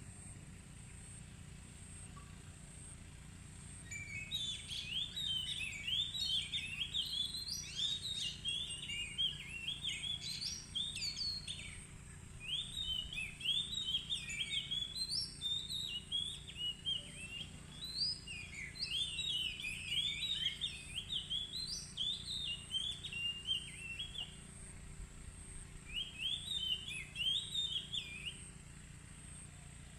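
Oriental magpie-robin (kacer) singing in full voice: long runs of rapid, varied, clear whistled phrases. It starts about four seconds in, pauses briefly near the end, sings one more short phrase and stops.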